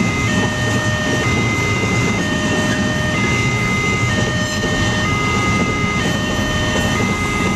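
Railway level-crossing warning alarm sounding, an electronic signal alternating between two pitches about once a second, over the steady rumble of a passing train.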